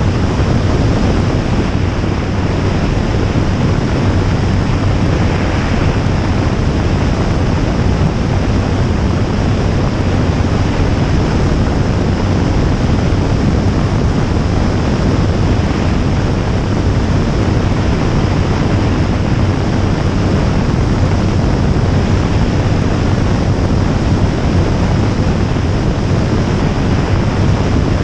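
Jabiru J160 light aircraft in steady cruise: a constant low drone from its four-cylinder engine and propeller, buried under heavy wind rush on a camera mounted outside the airframe.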